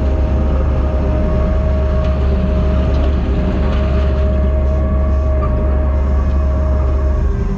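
Diesel engine of a piece of heavy earthmoving equipment running steadily under work, a deep constant drone with a steady whine over it.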